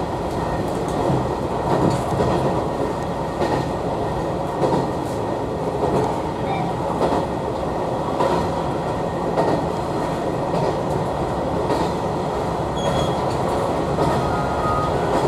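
Hisatsu Orange Railway train running along the line, heard from inside the car: a steady running rumble with the wheels knocking over rail joints every second or so.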